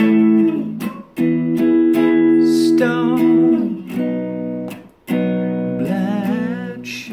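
Man singing long held, wavering notes over electric guitar chords, with two short breaks between phrases.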